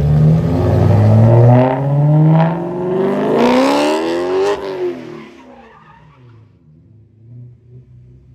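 BMW E9x M3's V8 revving hard, its pitch climbing in several steps, with tyres squealing about three to four and a half seconds in. The sound then fades away after about five seconds, leaving a faint engine hum.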